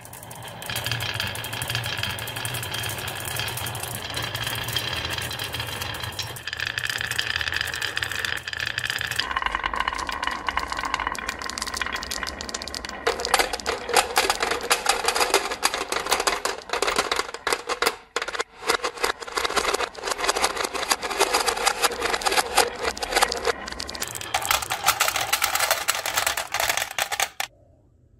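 Marbles rolling down the wavy grooves of a wooden marble-run slope: a continuous dense rattle of clicks as they knock against each other and the wood, with a steady rolling tone running under it. It stops suddenly about a second before the end.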